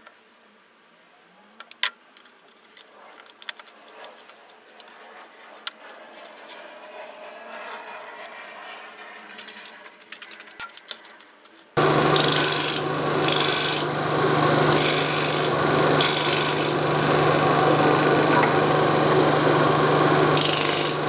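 A few light wooden clicks and taps as finger-jointed box sides are pushed together. About halfway through, a disc sander suddenly starts running loud and steady, with repeated bursts of rasping as the wooden box's ends are pressed against the sanding disc.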